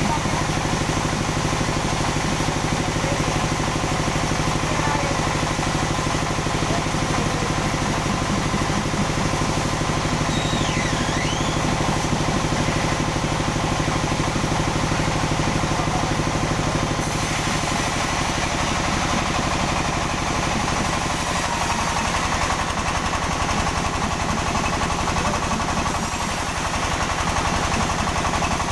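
Sawmill machinery running steadily with a constant engine drone. About seventeen seconds in, a brighter hiss joins and the tone shifts slightly.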